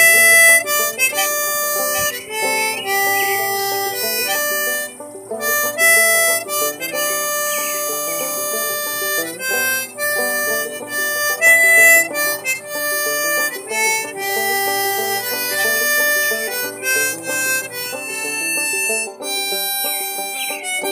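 Harmonica (blues harp) playing a tune of held notes and chords that change every half second to a second.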